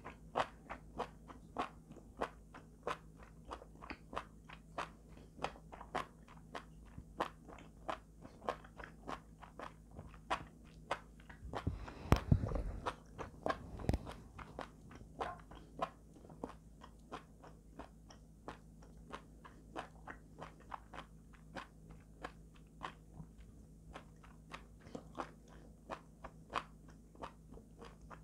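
Mouth-closed chewing of soft food, heard close up as a steady run of small wet clicks about two to three a second. About twelve seconds in there is one louder, low thump.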